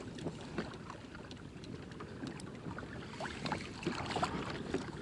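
Water lapping and slapping against a fishing kayak's hull, with scattered small knocks and clicks.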